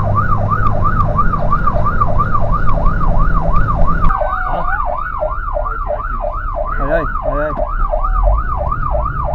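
Fire truck siren on a fast yelp, its pitch sweeping up and down about three times a second, heard from inside the cab over the truck's diesel engine. The engine rumble drops away about four seconds in while the siren keeps going.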